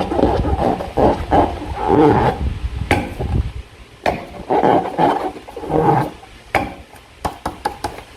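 Slime being squeezed and worked by hand: irregular squelching swells, with a few sharp clicks in the second half as the squelching thins out.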